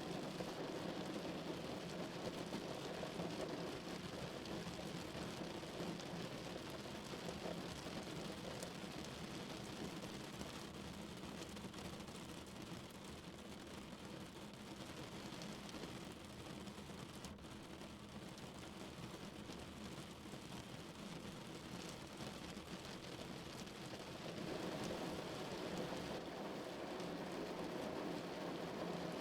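Steady rain falling on a car's roof and windows, heard from inside the car. It eases a little in the middle and grows heavier again near the end.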